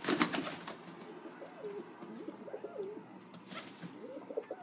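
Domestic white pigeon cooing in short wavering calls, with a quick burst of wing flaps at the start and another just past halfway as it flutters.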